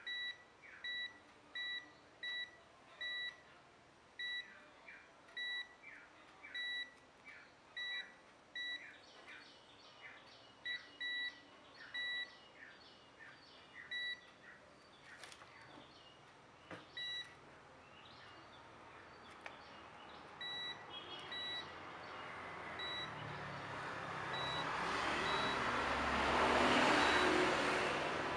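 Digital multimeter's continuity beeper giving short beeps, about one or two a second at first and then more sparsely, as the probe is tapped across points on a Realme C11 circuit board; the beeps mark a short to ground. Near the end a rushing noise swells, peaks and eases off.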